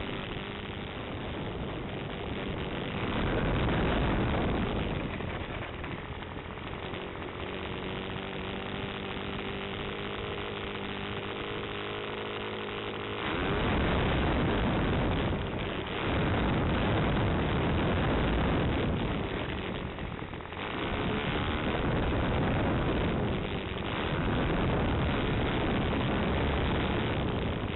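RC model airplane's motor and propeller heard through its onboard camera: a steady hum, then from about halfway in several surges of louder, rushing noise.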